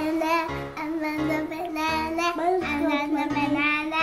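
Background music with a steady beat under a held note and a high, wavering melody line.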